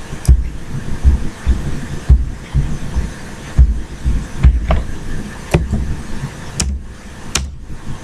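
A few sharp computer mouse and keyboard clicks over a low, uneven thumping that recurs every half second or so.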